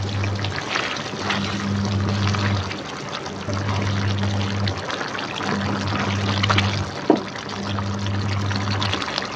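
A spatula stirs duck pieces through thick soy sauce bubbling in a wok, making wet stirring and bubbling sounds. About seven seconds in, the spatula gives one sharp knock against the pan.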